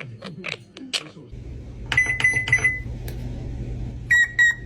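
Two sets of three short, high, clear beeps like a microwave oven's, over a steady low hum. In the first second there are short chirpy clicks.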